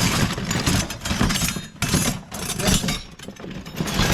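Loose scrap metal (cans, wire and copper pieces) clattering and clanking in irregular bursts as it is rummaged through and pulled out of a bin.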